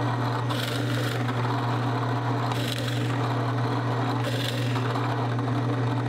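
A 12-inch Ryobi benchtop drill press running with a steady motor hum while a Forstner bit bores a row of holes into a board, each to the depth set on the depth stop. The cutting into the wood is heard three times, a second or two apart.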